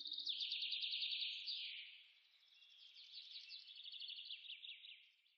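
A songbird singing two fast, high trilled phrases of rapidly repeated notes, the second starting about two and a half seconds in. A low held tone fades out in the first second.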